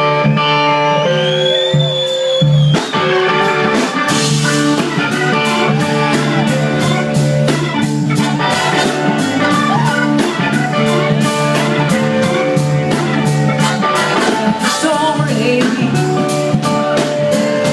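Live blues-rock band playing an instrumental passage on electric guitars, bass and drum kit, with the drums coming in fully about four seconds in.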